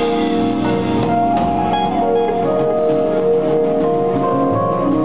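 Small jazz band playing live: a saxophone holding long melody notes over electric guitar, keyboard and drum kit.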